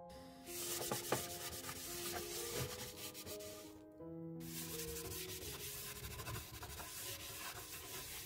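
Folded paper towel rubbing and scrubbing across a nonstick frying pan, a dry scratchy wiping in two stretches with a short pause about halfway, over soft background music.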